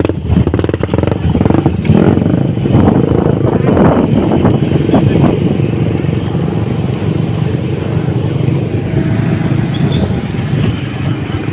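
Motorcycle engine running steadily while riding along a dirt track.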